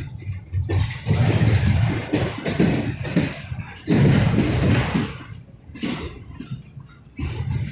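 Freight train rolling slowly past, with a low rumble that swells and fades and irregular metallic clanks and bangs from the cars.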